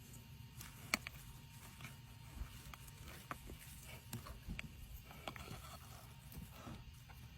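Faint squelches and small clicks of hands working in wet, sticky mud over a low steady hum, with one sharper click about a second in.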